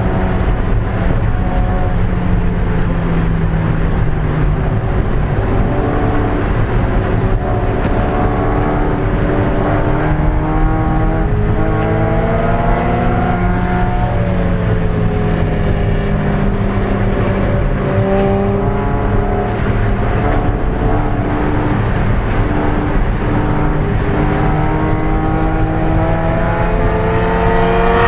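A 1995 Mazda Miata's 1.8-litre four-cylinder engine racing at high revs. Its pitch climbs and falls again and again as the car accelerates, lifts and changes gear.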